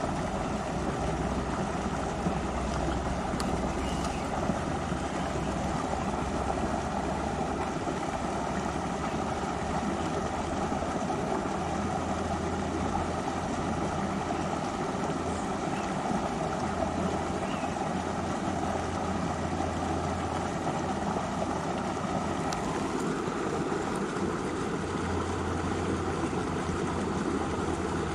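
River water flowing over rocks, a steady rushing noise with a low rumble underneath.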